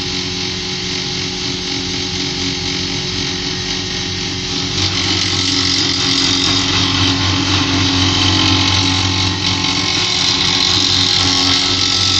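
Homemade jointer running with a steady hum. About five seconds in, its cutterhead starts planing a board fed under the spring-loaded pressure roller, adding a loud rushing hiss that continues to the end.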